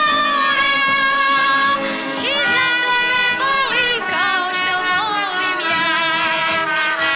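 A young woman singing into a microphone, holding long notes with sliding ornaments.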